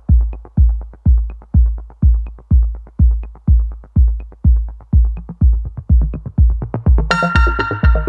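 Electronic background music: a steady deep kick-drum beat about twice a second with light ticks over it, joined near the end by a held synthesizer chord.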